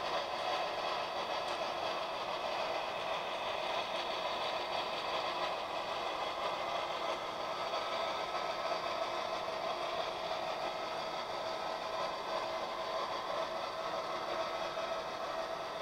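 HO-scale model freight train running steadily along the layout track, its motor and rolling cars giving an even mechanical running sound.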